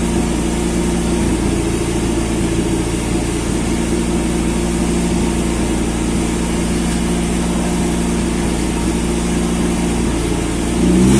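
Turbocharged Toyota 4E-FTE four-cylinder engine running steadily, then starting to rev up near the end.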